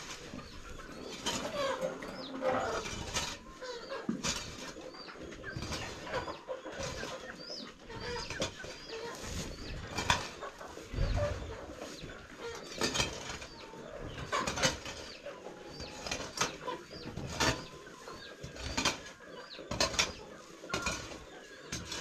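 Long-handled hoe scraping and dragging dry wood-shaving and manure litter across a poultry-house floor in repeated strokes every second or two. Chickens call in the background.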